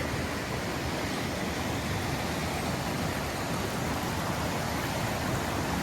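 Rushing water of a river falling over small waterfalls: a steady, even hiss with no break.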